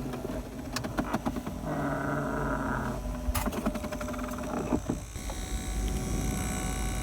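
Clicks and handling knocks, then, about five seconds in, a steady buzzing whine from the small fan motor of a Ford Focus 2 climate-control cabin air temperature sensor. This is the annoying cabin buzz the sensor makes when its fan is clogged with dust.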